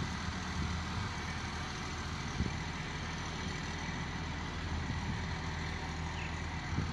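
A motor vehicle engine idling with a steady low rumble, over the constant hum of street traffic.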